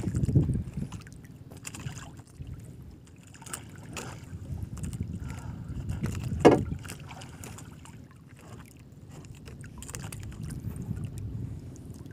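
Small boat drifting on the water: water sloshing and lapping against the hull in uneven swells, with scattered knocks. A short, sharp, louder sound stands out about six and a half seconds in.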